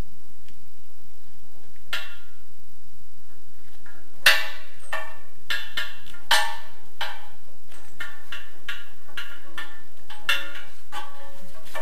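Sharp metallic clinks and taps with a short ring, as a flexible supply hose fitting is turned and knocked against a chrome mixer faucet body while being screwed in. A run of irregular clicks, the loudest about four and six seconds in.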